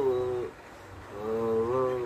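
A person's voice singing long, wavering drawn-out notes; one note fades about half a second in, and another swells up about a second in and is held.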